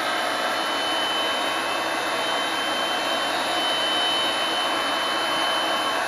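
RIDGID power pipe threading machine running steadily, spinning the pipe while its carriage-mounted wheel cutter is fed in to cut the end off, with a thin high whine over the motor noise.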